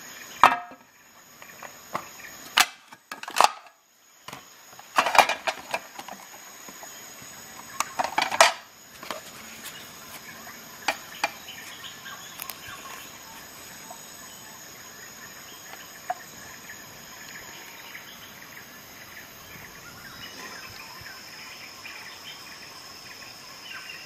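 Handling noises as a multi-tool in its nylon sheath and a digital kitchen scale are moved about and set down on a glass tabletop: several sharp knocks and rustles through the first nine seconds, and a couple of lone clicks a little later. After that there is only a steady faint hiss with a thin high whine.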